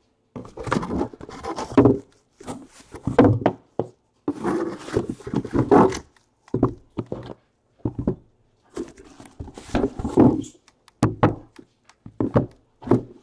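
Cardboard boxes being handled, heard as scraping and rubbing with soft thunks in irregular bursts, as the sealed boxes are taken out of a shipping case and set down in a row. There is a sharp click about eleven seconds in.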